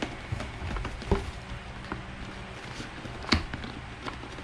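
A few knocks and taps as a cardboard box is handled and its lid pressed and closed, two of them louder, about a second in and past three seconds in, over a low steady hum.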